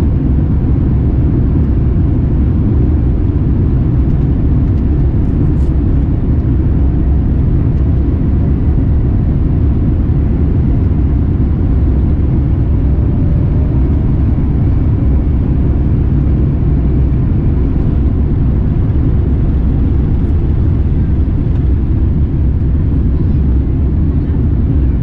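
Cabin noise aboard a Boeing 787-9 airliner: a steady low rumble of engines and airflow, even throughout.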